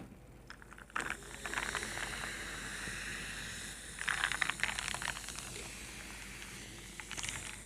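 Crackling and crunching from potato chips in two bursts, one about a second in and a louder one about four seconds in, over a steady hiss.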